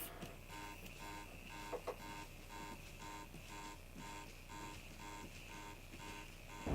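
Electronic alarm of a ROBOTIS Smart 3 alarm robot going off: faint, short beeps repeating in a steady rhythm.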